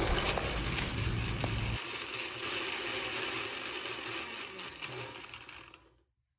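Countertop blender with a glass jar running, grinding nuts, raisins and cardamom seeds in a little milk. It runs steadily, then runs down and stops near the end.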